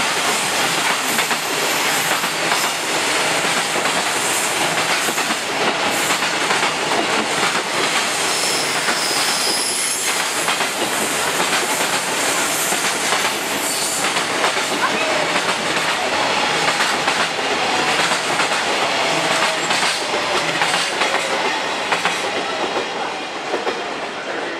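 Freight train hauled by a JNR Class EF65 electric locomotive rolling past, its wagons' wheels clattering steadily over the rail joints, with a brief high wheel squeal about ten seconds in.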